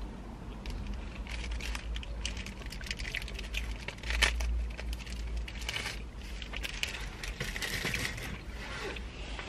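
Sandwich wrapping crinkling and crackling in a stream of short clicks as it is handled and peeled back, over a low rumble, with a dull thump about four seconds in.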